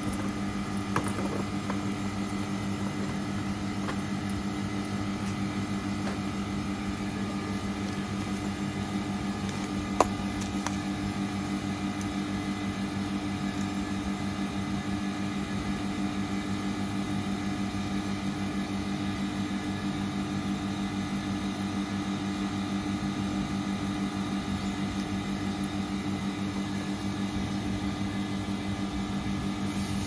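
Carrier 38QCA065 outdoor condensing unit, about 30 years old, running steadily with its compressor and condenser fan on: a constant low hum. Two sharp clicks, one about a second in and a louder one about ten seconds in, come from the refrigerant gauge set being handled and fitted.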